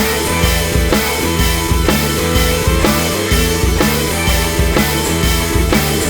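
Rock background music with a steady drum beat.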